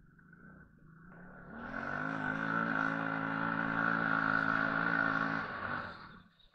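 TGB 550 quad's engine picking up revs about a second and a half in, held steady under load with a high whine over it, then dropping away near the end.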